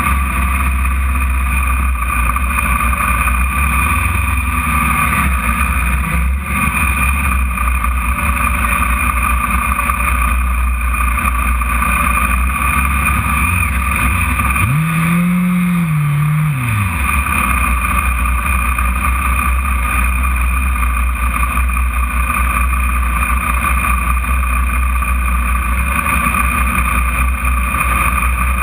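Radical sports-racer's engine idling and pulling at low speed, a steady drone heard onboard from the cockpit. About halfway through, a brief rev rises, holds and falls back.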